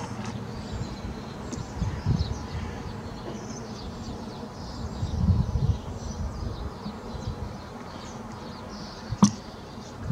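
Outdoor background on a camera's built-in microphone: low rumbles swelling a couple of times, faint scattered high chirps, and one sharp click near the end.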